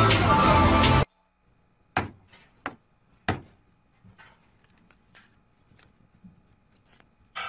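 Music cuts off abruptly about a second in. Then a hand-held tool strikes a smartphone's screen: three sharp knocks about two-thirds of a second apart, followed by faint small clicks and taps.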